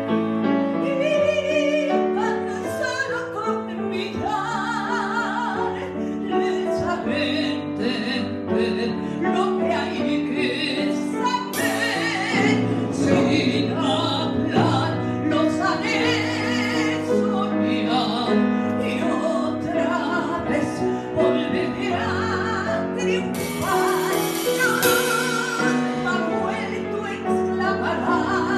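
A woman singing a ballad with wide vibrato over a symphony orchestra.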